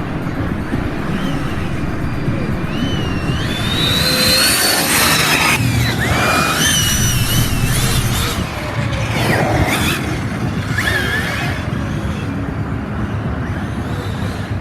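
Electric RC cars' brushless motors whining, the pitch sweeping up and down as they accelerate and slow, over a steady rumbling noise.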